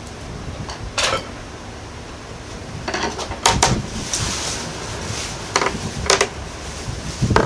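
Dishes and cutlery clinking and knocking as they are handled and set down: about six sharp clinks, three of them close together partway through.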